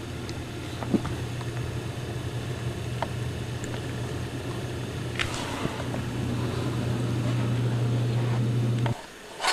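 Domestic tabby cat purring steadily and close up, the mother of a new litter; the purr stops abruptly near the end.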